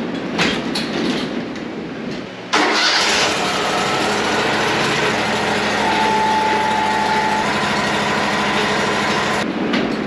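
Wood-Mizer LT40 sawmill's engine starts up about two and a half seconds in and runs steadily, with a brief high whine partway through, then stops abruptly near the end.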